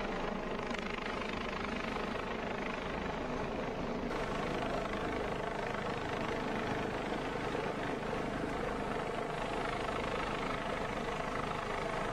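Rescue helicopter hovering, a steady, unbroken drone of rotor and engine.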